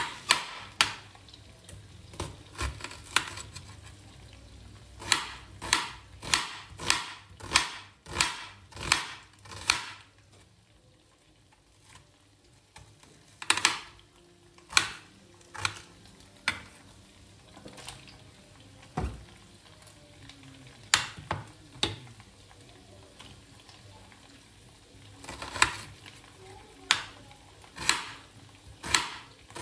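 Chef's knife chopping red onion and peppers on a hard cutting board: sharp knocks about two a second in runs, broken by pauses of a few seconds.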